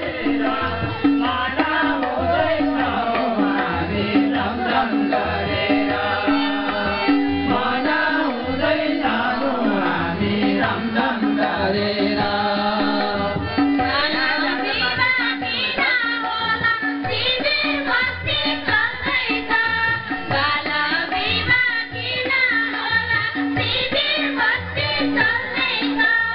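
Nepali folk song (lok geet) sung by a group of men, with a hand drum keeping a steady beat and a harmonium beneath the voices.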